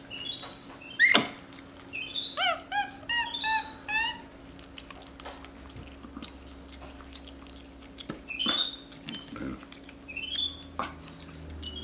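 Capuchin monkey making short, high, arching chirps and squeaks in several quick runs, the longest about two seconds in. Soft clicks and smacks of the monkey eating fall between them.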